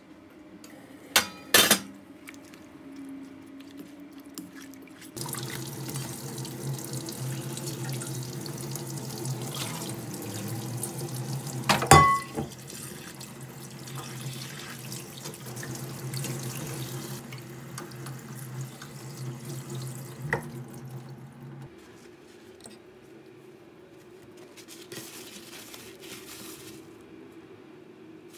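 Kitchen tap running into a stainless steel sink while cabbage leaves are rinsed by hand in a mesh colander. The water comes on about five seconds in and stops a little after twenty seconds, with a loud knock midway. Two sharp clicks come just after the start.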